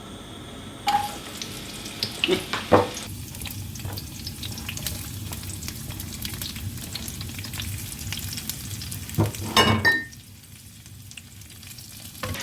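Sliced onion rings sizzling as they fry in hot oil in a pan, with a few sharp knocks of a utensil against the pan. The sizzling fades down near the end.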